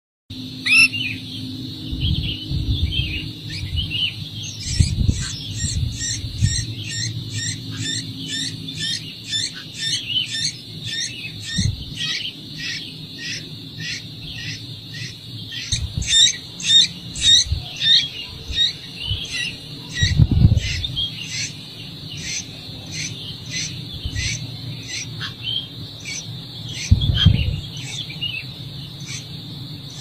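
Nestlings begging: rapid, repeated high chirps, about two or three a second, over a steady high buzz, with a few low thumps.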